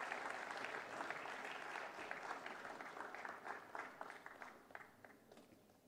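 Audience applauding. The clapping thins out into scattered claps and dies away near the end.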